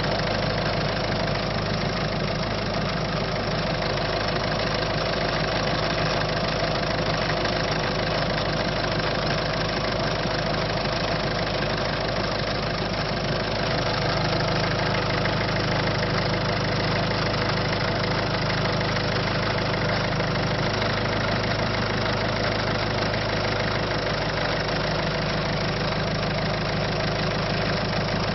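Peugeot/Citroën 1.6 HDi four-cylinder turbodiesel engine idling steadily, showing an abnormal engine noise whose cause is not named.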